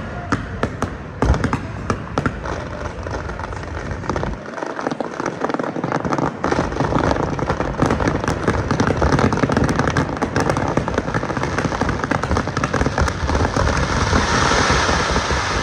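Fireworks display: a quick run of sharp bangs and crackles, thickening into a dense, continuous crackle over the last few seconds.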